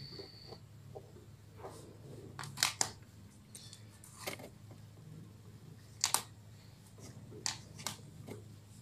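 Handling noise: a headphone cable and its jack plug being picked up and set down, giving scattered sharp clicks and taps, about half a dozen, over a faint steady low hum.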